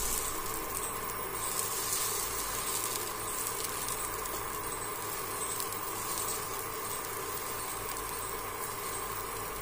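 Steady faint sizzle of moong dal and rice dosa batter on a hot non-stick kadhai as a spoon spreads it.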